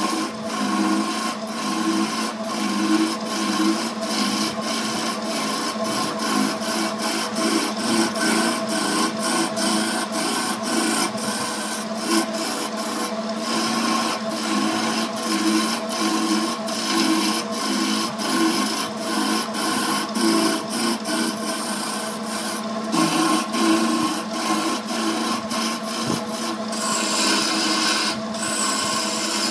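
Wood lathe running with a hand-held turning tool cutting into a spinning wooden blank: a steady motor hum under the rough scraping hiss of the cut, pulsing as the tool rides the surface and broken by frequent short ticks.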